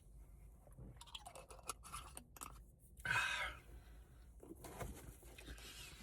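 Close mouth sounds while tasting a shot of blackberry moonshine: a run of small clicks and crackles, then a short breathy rush about three seconds in.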